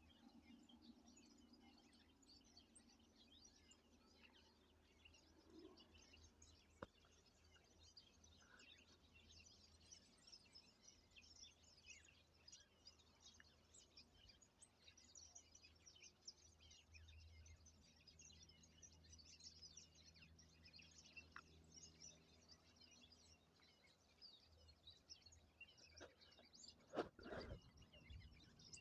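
Faint outdoor ambience of many small high-pitched bird chirps scattered throughout, with a couple of brief knocks near the end.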